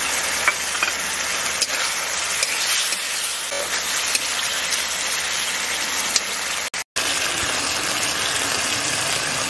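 Tomatoes and spice paste sizzling in hot mustard oil in a metal wok: a steady frying hiss, with a few light clicks and scrapes from a metal spatula stirring. The sound cuts out for a moment about seven seconds in.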